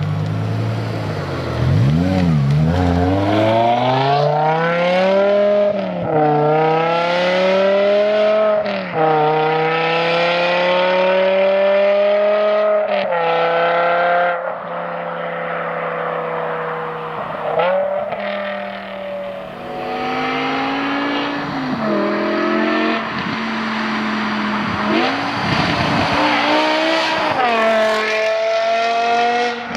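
BMW M5 E61's 5.0-litre S85 V10 accelerating hard through the gears. Its pitch climbs steadily in each gear and drops sharply at each shift, with a spell of lighter running midway before it pulls up through the revs again.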